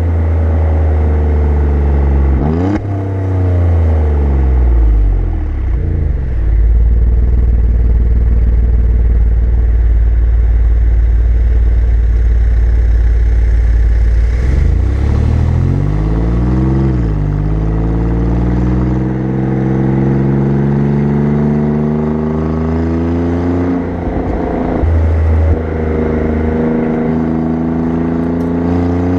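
Alfa Romeo Giulia Quadrifoglio's twin-turbo V6 exhaust heard close up while driving. The revs climb and drop with gear changes early on and again in the last few seconds. Between these it settles into a steady low cruise, broken about fifteen seconds in by a short rise and fall in revs.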